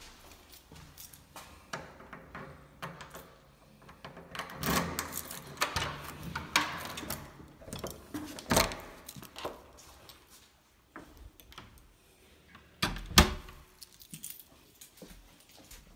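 A bunch of keys jangling and rattling as a key is worked in a front-door lock, with the clicks of the lock and door handle. About 13 seconds in comes a single heavy thump.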